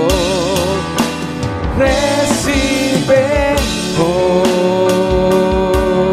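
A Spanish-language worship song: held, wavering sung notes over an electronic keyboard, with a steady drum beat.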